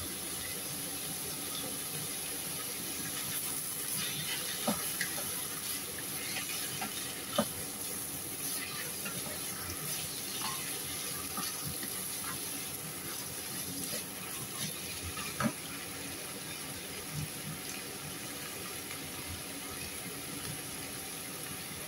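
Sliced sausage and ground meat sizzling in a nonstick frying pan, a steady hiss, while a wooden spoon stirs and scrapes through it with a few sharp knocks against the pan.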